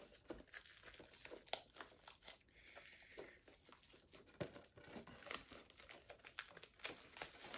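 Plastic shrink wrap on a Blu-ray SteelBook case being opened and peeled off: faint, irregular crinkling and tearing crackles.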